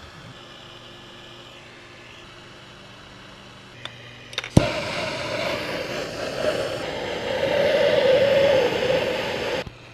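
Hand-held gas torch lit with a sharp click about four and a half seconds in, then burning with a loud, steady rushing hiss and drone as it heats the ring's metal for soldering; it cuts off abruptly near the end. Before that, only a faint steady hum.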